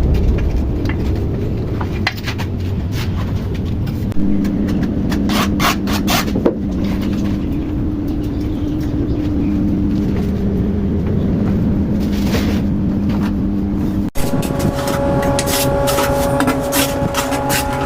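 Electric angle grinder running, cutting and grinding ceramic tile: a steady motor hum with scattered clicks and scraping. It cuts off abruptly about 14 s in and a different, higher-pitched steady run follows.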